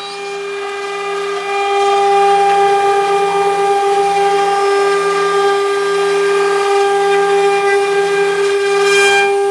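CNC mould engraving machine's spindle running with a steady high-pitched whine and overtones while its cutter mills a clamped workpiece. A lower hum underneath breaks off about once a second, and there is a brief rush of cutting noise near the end.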